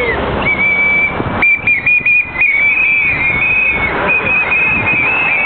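Several whistles blown by strikers, each a high tone. They come in short toots and longer blasts that overlap one another.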